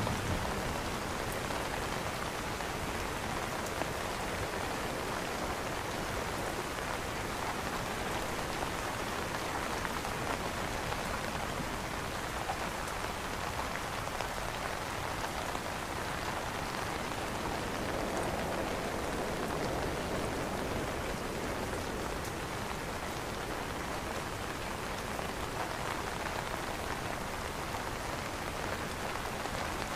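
Steady rain falling on an umbrella canopy: an even, unbroken hiss of many drops, with no change in strength.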